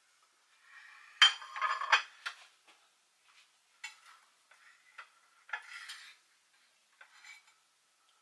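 A table knife clinking and scraping on ceramic plates as a wedge of steamed suet pudding is cut and levered out. The loudest crockery clatter, with a brief ring, comes about a second in, followed by a few lighter clicks and scrapes.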